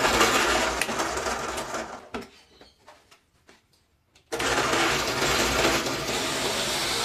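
Schulz bench drill press running, its bit boring into purpleheart wood. The noise dies away about two seconds in, leaving a near-silent gap with a few faint clicks, then the drill comes back abruptly about four seconds in.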